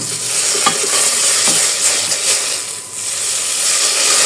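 Butter sizzling in a hot pot, a steady hiss that dips briefly near three seconds in.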